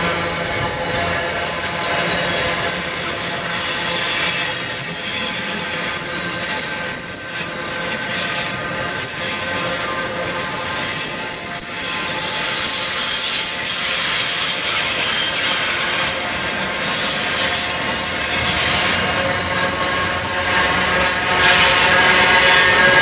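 Container wagons of a long freight train rolling past close by: steady wheel-on-rail noise with several high, steady squealing tones from the wheels. A thin, very high whine stops near the end.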